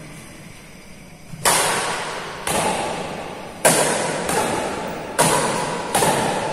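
Badminton rally: sharp racket-on-shuttlecock hits about once a second, starting about a second and a half in, six or seven strokes in all. Each crack rings on in the long echo of a large, bare sports hall.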